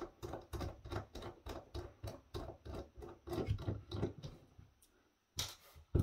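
Small screwdriver backing screws out of the plastic base of a Dell D6000 USB-C docking station: a quick run of light clicks, about four a second, that stops after about four seconds, followed by a soft knock near the end.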